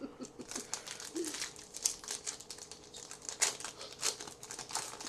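Crinkling and rustling from football trading cards and their pack wrappers being handled, a dense run of quick, irregular handling noises.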